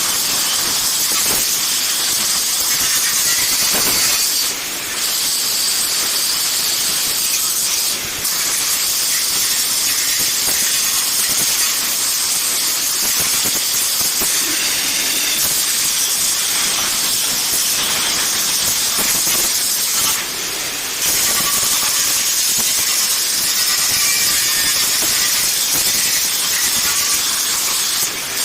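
Angle grinder grinding a metal fancy gate: a loud, steady hiss of the disc on metal, with a few short dips where the disc comes off the work.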